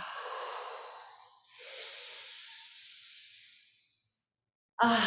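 A woman breathing audibly in a deep-breathing exercise: the breathy tail of a long exhale, then a second long breath, a brief pause, and near the end a loud voiced sigh on the exhale out of the mouth.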